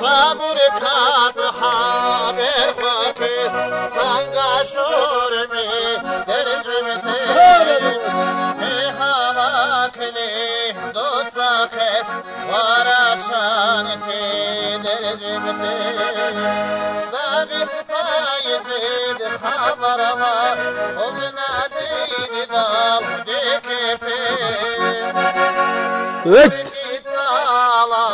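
Accordion playing a Dargin folk melody, with ornamented, wavering notes over a steady lower accompaniment. Near the end there is a brief, loud rising sweep.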